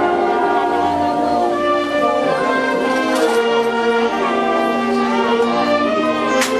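Brass band music, a slow melody of held notes on trombones and trumpets, with a short sharp crack near the end.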